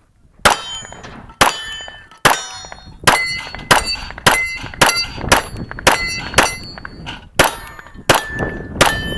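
A string of about fourteen 9mm shots from a Smith & Wesson M&P9L pistol, fired about half a second to a second apart during a timed competition stage. Many shots are followed by a short metallic ringing.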